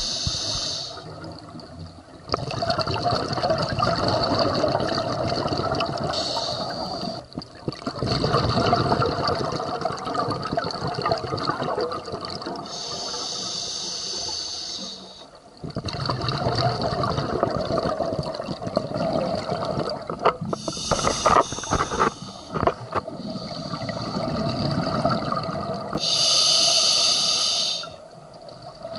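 Scuba diver breathing through a regulator underwater: five slow breaths, each a short hissing inhale followed by a longer rush of exhaled bubbles.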